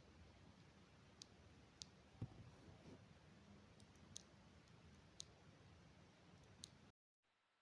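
A handful of faint, sharp, irregularly spaced clicks from a Gateron mechanical keyboard switch being pressed, with one duller knock about two seconds in. The sound cuts out abruptly near the end.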